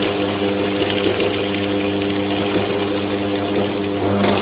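Automatic welder's arc running steadily: a dense crackle over a buzzing mains hum, cutting off abruptly near the end.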